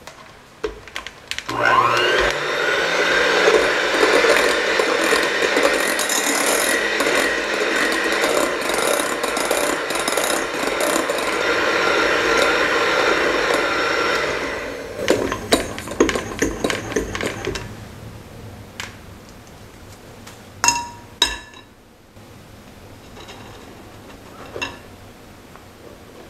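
Electric hand mixer starting up about a second and a half in and whirring with its twin beaters churning through chocolate brownie batter in a glass bowl. After about 13 seconds it drops to a rattling clatter for a few seconds and stops, followed by a few sharp taps.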